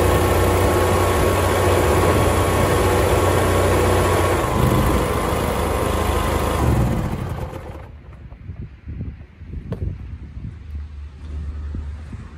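Riding rice transplanter's engine running steadily, driving the belt-driven power sprayer pump mounted on it, then shut off about seven seconds in and running down to a stop. The owner says it runs well but the belt's tension bearing needs to sit slightly further out.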